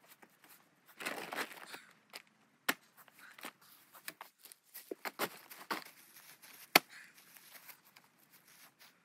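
Footsteps through dry grass and leaf litter and a plastic tarp rustling as it is staked down, with scattered crackles and a few sharp knocks, the loudest about seven seconds in.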